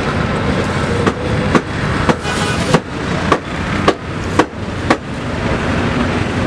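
A run of eight sharp knocks, about two a second, over steady street noise.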